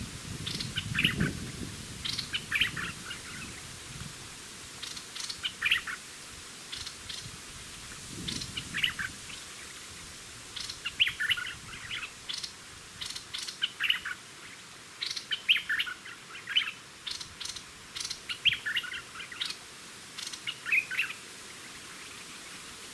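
Streak-eared bulbuls calling around a trap cage: short, sharp chirps in quick clusters every second or two.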